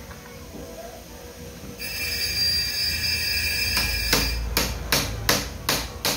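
A hand hammer struck about seven times in quick succession, roughly three blows a second, in the second half, during chainsaw repair work at the bench. A faint steady high whine runs underneath.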